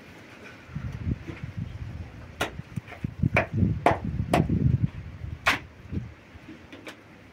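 A run of dull thumps with about five sharp knocks among them, irregularly spaced, ending about six seconds in.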